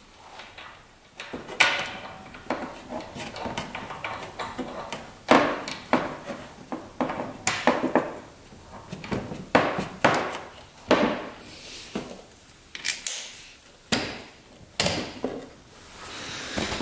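Compression tester hose and gauge being fitted back into an ATV engine's spark plug hole for a wet compression test: irregular clicks, knocks and rattles of handled metal fittings and hose against plastic bodywork.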